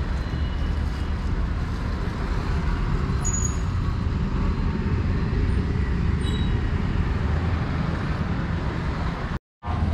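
Steady low rumble of road traffic noise, cut off abruptly for a moment near the end.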